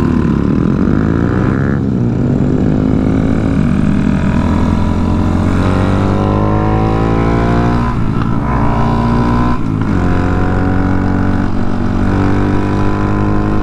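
Honda Monkey motorcycles' single-cylinder engines pulling away from a stop. The engine note climbs in pitch and drops back at each upshift through several gears, over wind noise.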